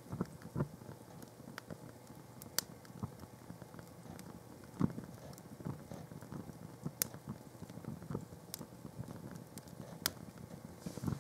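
Small fire crackling as white canvas plimsolls and paper burn on a grate, with irregular soft ticks and a few sharp pops spread through it.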